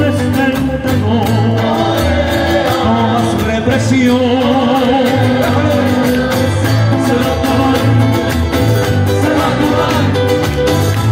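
Live street band playing Latin American folk-style music on acoustic guitars, with voices singing through PA speakers.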